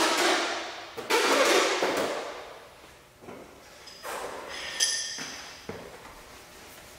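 Metal dent-repair tools clattering on a tool stand as a slap hammer is pulled out, loudest about a second in, then a single short ringing metal clink near five seconds.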